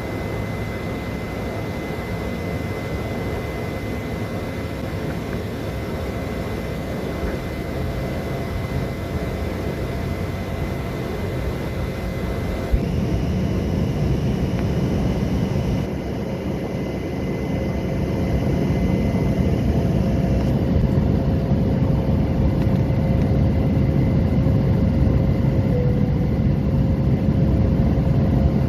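Airliner engines and rushing air heard from inside the cabin during the climb out after take-off: a steady drone with a thin steady whine over it. The sound changes abruptly about halfway through and grows louder in the last third.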